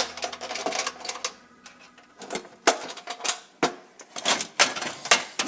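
Metal hand tools clinking and clattering in quick, uneven knocks as sockets and a wrench are sorted through and picked up.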